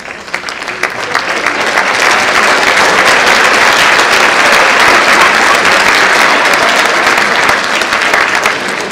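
Audience applauding, swelling over the first couple of seconds, holding strong, then easing off near the end.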